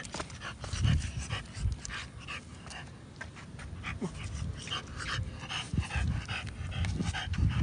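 French bulldog panting and sniffing in the grass, a run of short, irregular breaths, with scattered clicks and a few low thumps.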